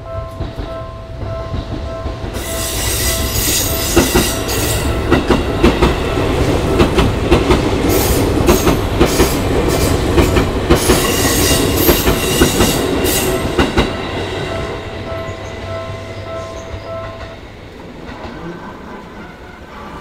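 Japanese level-crossing alarm bell ringing in a steady repeating pattern while a Seibu commuter train passes, its wheels clacking over the rail joints for about twelve seconds. The bell stops a few seconds after the train has gone, as the barriers lift.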